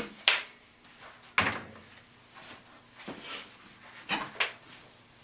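A handful of sharp metal knocks and clanks from hand clamps being taken off the wheel rim on a manual tire changer and set down, the loudest two in the first second and a half.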